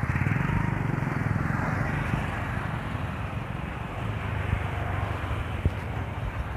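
Street traffic noise with a motorcycle engine running close by, its steady low beat clearest in the first couple of seconds, and a few light knocks later on.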